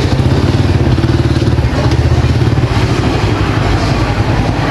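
A small engine running steadily with a low, even throb.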